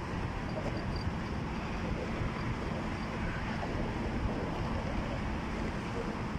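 Steady low rumble of wind on the microphone mixed with highway traffic noise, with no change throughout.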